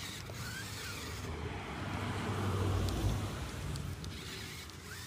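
Battery-powered toy RC rock crawler driving and climbing over loose soil, its small electric motors whirring and its tyres churning the dirt. A low rumble swells to its loudest a little past halfway, then eases.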